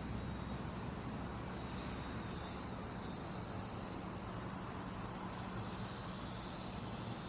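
Small toy quadcopter's motors and propellers whining in flight, a steady high-pitched whine that shifts slightly in pitch as the throttle changes, over a low hum and hiss.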